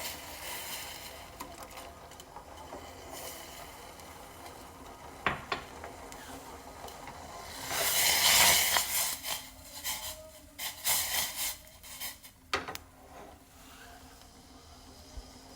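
Milk tea coming to the boil in a pan: a steady bubbling hiss that swells into a loud rush about eight seconds in, with scattered clicks and knocks.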